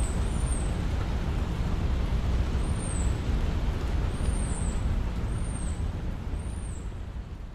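Wind blowing: a steady rushing noise with a heavy, fluctuating low rumble and short high chirps several times, fading out near the end.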